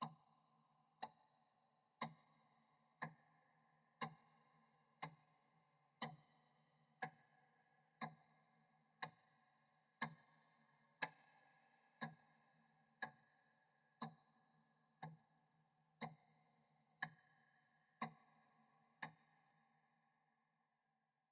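Mechanical clock ticking once a second with a heavy echo, each tick ringing on until the next. The ticks alternate slightly louder and softer, and after the last one, near the end, the echo fades away.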